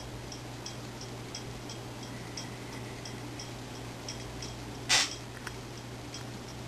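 Steady, rapid ticking, about three ticks a second, over a low, steady hum. One short, loud noise comes about five seconds in.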